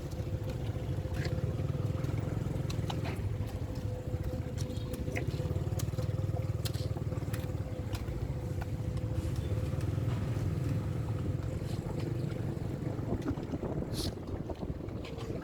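Steady low rumble of a road vehicle on the move, with a constant hum and scattered light clicks and rattles over it.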